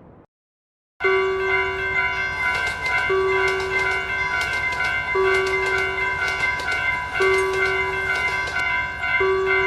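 Railway crossing warning bell ringing steadily, starting about a second in, a fast run of bright strikes over held ringing tones.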